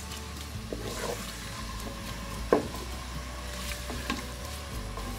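Wooden spatula stirring sliced onion, garlic and tomato frying in oil in an aluminium pressure cooker: a faint sizzle with a few scrapes of the spatula against the pot, the sharpest about two and a half seconds in.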